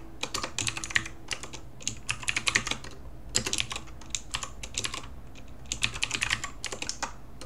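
Typing on a computer keyboard: quick runs of keystrokes broken by short pauses of about half a second.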